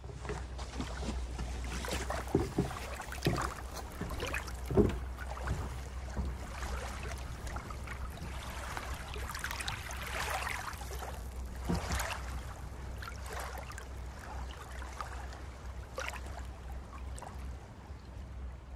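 Wind rumbling on the microphone, with water lapping at a lake's edge and scattered irregular knocks.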